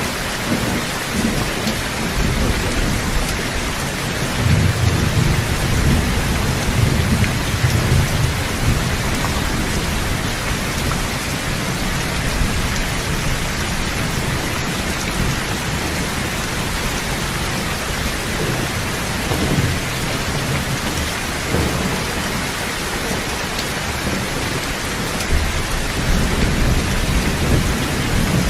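Steady rain with rumbles of thunder that swell several times, the strongest about four to nine seconds in.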